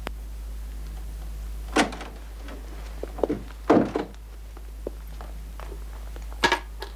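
A door being handled and shut: a few separate knocks and thuds, the loudest a little under four seconds in.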